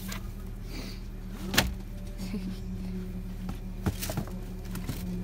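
Gear being shifted around in a car trunk: scattered knocks and rustles, the loudest a sharp knock about one and a half seconds in, over a steady low hum.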